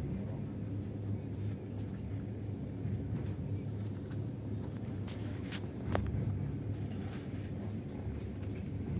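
Kenyan SGR passenger train heard from inside the carriage, running with a steady low rumble as it nears a station stop. A few faint clicks run through it, and a brief sharper knock comes about six seconds in.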